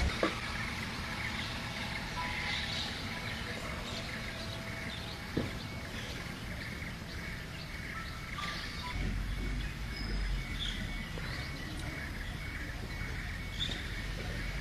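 Outdoor ambience with small birds chirping now and then over a steady, rapidly pulsing high tone; a low rumble comes in about two-thirds of the way through.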